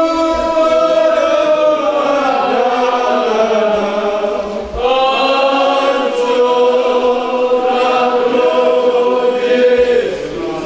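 A congregation singing a slow hymn together in long, drawn-out notes, breaking for breath about five seconds in and tailing off near the end.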